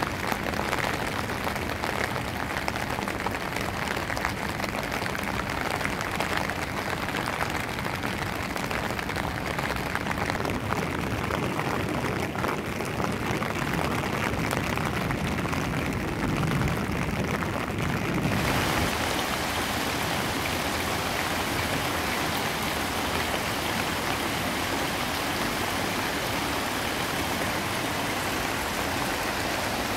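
Steady rain falling on the water of a canal. About two-thirds of the way through it changes abruptly to a brighter, steadier hiss of water gushing out of a sluice gate into a concrete channel, with the rain still falling.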